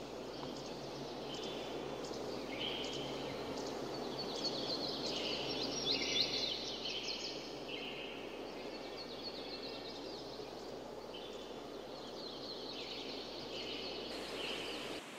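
Steady rush of flowing river water with birds chirping over it, the calls busiest about six seconds in.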